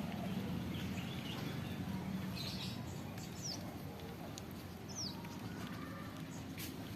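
A few short, high bird chirps, one about two and a half seconds in and quick gliding ones near three and a half and five seconds, over a steady low hum.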